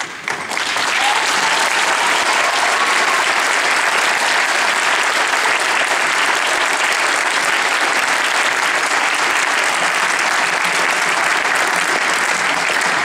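Audience applauding: a long, steady round of clapping that starts about half a second in.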